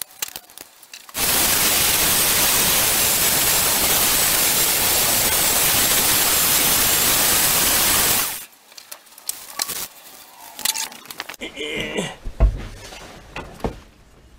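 Aerosol can of zinc primer spraying in one long steady hiss, starting about a second in and stopping about seven seconds later. A few light clinks and a knock from handled metal follow near the end.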